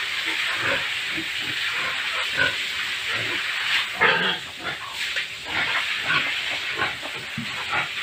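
Pigs grunting with short scattered calls, one louder about four seconds in, over the steady hiss of a hose spraying water.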